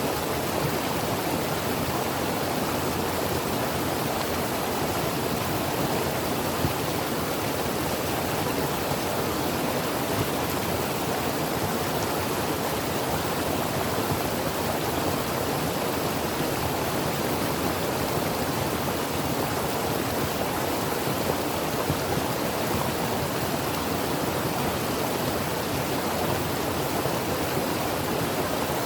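Creek water running steadily over rocks, an even rushing hiss.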